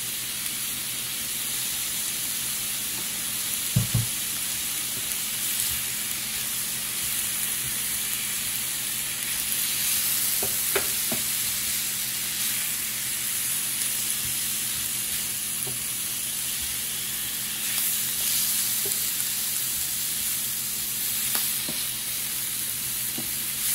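Shrimp, bell peppers and scallions sizzling steadily in a hot pan. A few short knocks of a utensil against the pan come as the food is stirred, the loudest about four seconds in.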